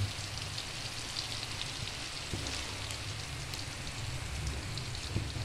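Chopped chili, tomato, garlic and shallot stir-frying in oil in a wok, sizzling with a steady fine crackle over a low hum.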